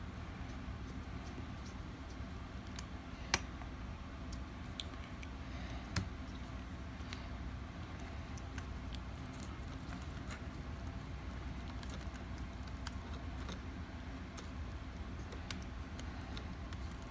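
Scattered small clicks and taps of plastic and metal laptop parts being handled during keyboard removal, over a steady low hum.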